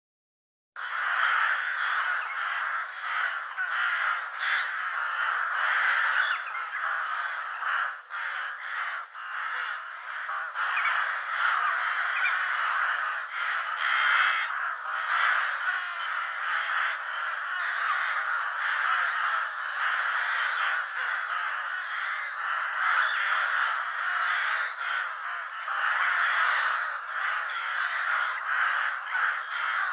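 Many crows cawing at once in a dense, continuous chorus of overlapping calls, starting just under a second in.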